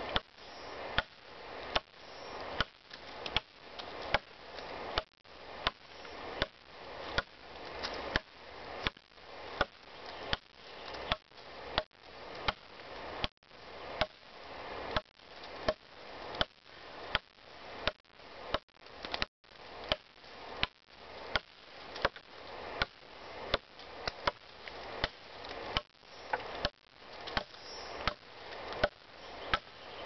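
Brazilian Tramontina machete chopping into a damp birch log: a steady series of sharp blows, about one a second.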